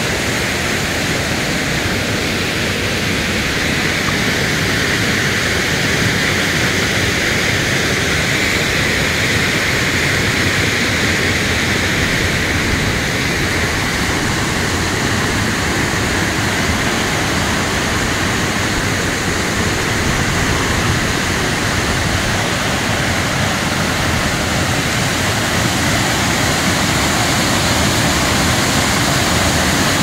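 Steady, loud rushing of water falling in a waterfall, an even noise with no breaks.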